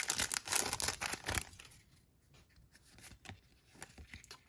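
Foil wrapper of a Magic: The Gathering booster pack being torn open and crinkled for about the first second and a half, then faint rustling as the cards are handled.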